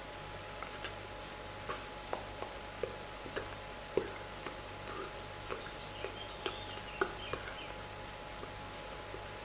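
Irregular faint clicks and taps, about two a second, from hands and fingers touching and brushing while signing, over a steady electrical hum and hiss. The sharpest taps come about four and seven seconds in.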